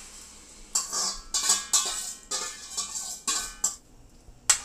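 A metal spoon scraping and clinking against a stainless steel bowl and saucepan as a thick yogurt and gram-flour mixture is scraped out. It comes as a run of irregular clatters, with a single sharp click near the end.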